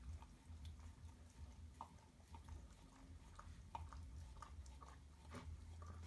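Faint wet smacking and clicking from week-old Entlebucher puppies, typical of suckling, with a few tiny squeaks, over a low hum.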